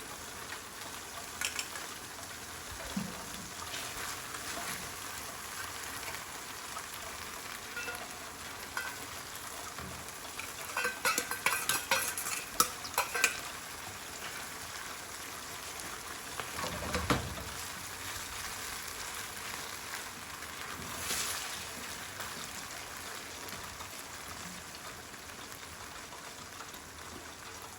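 Stir-fry sauce and stock sizzling steadily in a hot pan while being stirred. A little over ten seconds in, a spatula clatters against the pan in a quick run of sharp strikes for a couple of seconds, and a single dull knock follows a few seconds later.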